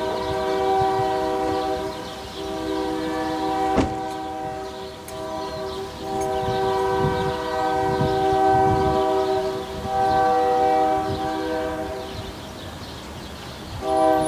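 Union Pacific freight train passing, covered hopper cars rolling by with low rumbling thumps from the wheels, while the locomotive's multi-note horn sounds a chord in long blasts. The horn eases off near the end and sounds again just before the end, and there is one sharp click about four seconds in.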